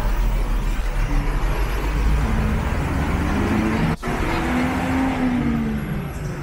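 Street traffic: a motor vehicle's engine gives a steady low rumble, loudest for the first four seconds, over general street noise. A sudden break about four seconds in.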